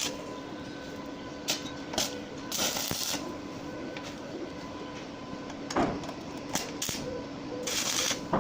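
A steady machine hum with short bursts of hiss and clatter over it, the longest about two and a half seconds in and again near the end.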